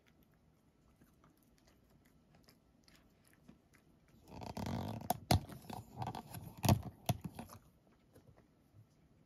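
A domestic cat eating a treat from a person's fingers: about three seconds of chewing with several sharp clicks, starting about four seconds in.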